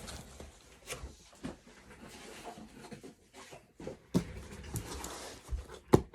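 Packaging being handled between boxes: scattered knocks and rustles, with a sharper knock near the end.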